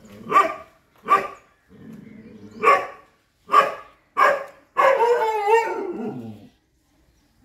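Chippiparai sighthound barking at monkeys in the trees: five sharp barks, then a longer wavering bark-howl that falls in pitch at its end.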